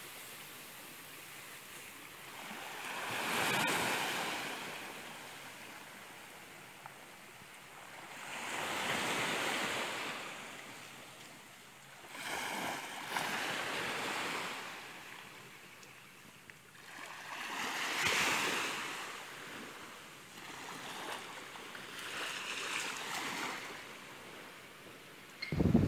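Small waves washing up a sandy beach and drawing back, swelling and fading about every four to five seconds.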